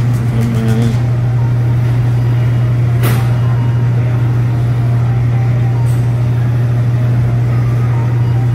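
Steady low machine hum filling the store, with a single sharp click about three seconds in.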